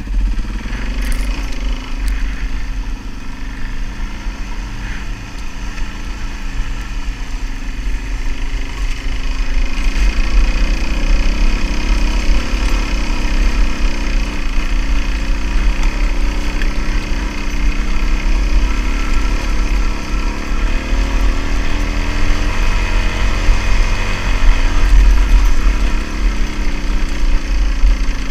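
Suzuki DR-Z400S single-cylinder four-stroke engine pulling the dirt bike up a steep, rough hill climb, heard from a helmet-mounted camera. It gets louder about ten seconds in and stays strong.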